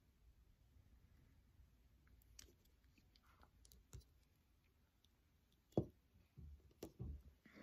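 Soft clicks and knocks of objects being handled on a tabletop, scattered through a quiet room: a few faint ones, then the sharpest about six seconds in and several duller knocks just after.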